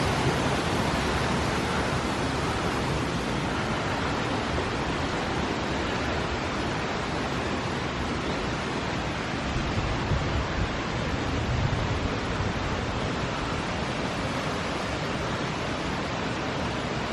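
Rushing mountain stream rapids: a steady, full hiss of fast-moving water.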